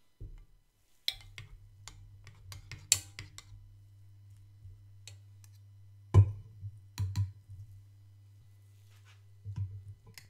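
Metal spoon stirring and scooping hot vanilla pudding in a small metal cup, giving light clinks and scrapes against the cup, with two sharper knocks a little past the middle. A low steady hum runs underneath.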